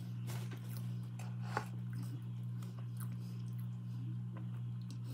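Close-up chewing and mouth clicks from someone eating fast food, over a steady low electrical hum.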